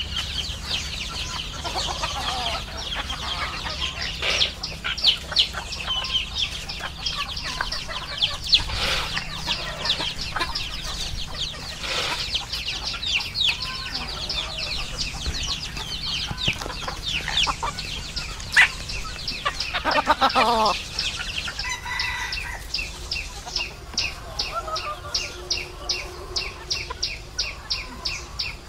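Flock of chickens and roosters feeding on scattered corn, clucking and chirping busily, with a rooster crowing about twenty seconds in. In the last few seconds a high chirp repeats steadily, about three times a second.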